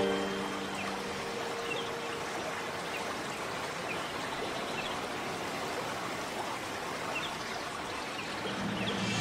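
Steady rushing noise like running water, with a few faint short chirps scattered through. A held musical chord dies away in the first second or two, and music comes back in near the end.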